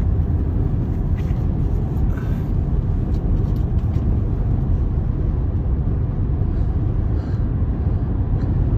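Steady low rumble of a car interior: engine and road noise heard from inside the cabin.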